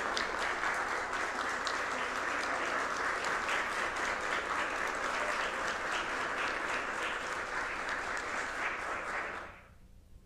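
An audience applauding: many hands clapping in a dense, steady patter that cuts off sharply near the end.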